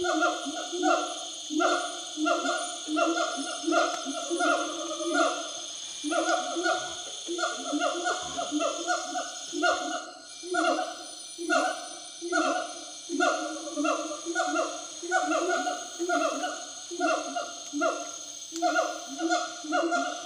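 Gibbons calling in a long run of loud, repeated hoots, two or three a second, with a brief lull about halfway, over a steady high insect buzz.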